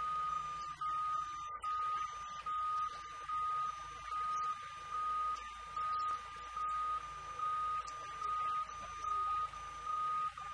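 Forklift warning beeper sounding continuously: a steady high electronic tone that pulses louder a little more than once a second, over a faint low engine hum.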